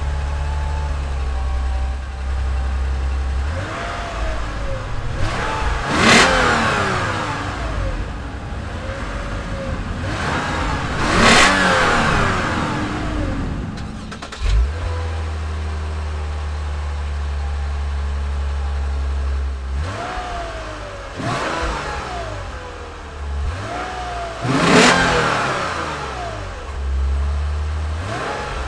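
Exhaust of a 2016 Lexus IS 300 AWD's 3.5-litre V6 idling, then revved up and let fall back, with two sharp peaks. After a cut, a 2017 Lexus IS 300 F Sport's exhaust idles steadily and is blipped several times, the biggest rev about three quarters of the way through.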